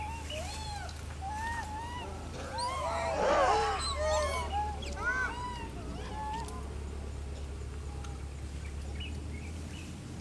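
A troop of rhesus macaques giving many short, arched coo calls that overlap most thickly about three to five seconds in, then thin out to a few scattered calls. A steady low rumble sits underneath.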